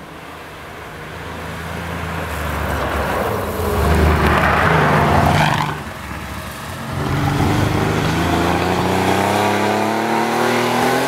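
Air-cooled flat-six engine of a classic Porsche 911 rally car approaching at speed, growing steadily louder until it passes close by about four to five seconds in. The engine note dips briefly around six seconds, then climbs steadily in pitch as the car accelerates away.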